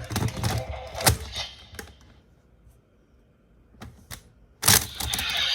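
Hard plastic clicks and clacks from handling a Kamen Rider Saber toy sword: a run of sharp clicks in the first two seconds, a near-quiet pause, then a loud clack with a few quick clicks near the end.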